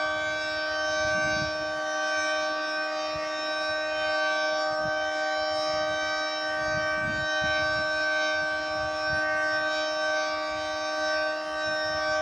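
Federal Sign & Signal 3T22 three-tone rotating outdoor warning siren sounding a steady, high-pitched chord with no rise and fall: the alert signal.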